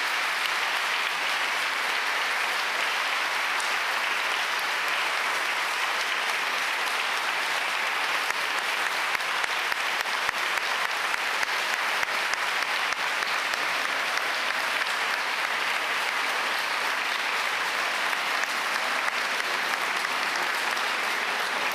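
Audience applauding steadily and without a break.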